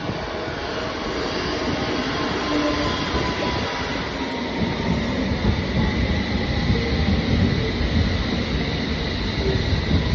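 London Underground trains running along the platform, a steady rumble of wheels on rail. A faint tone slides slightly downward in the first few seconds. About halfway through the rumble grows heavier and rougher as a Metropolitan line train passes close by.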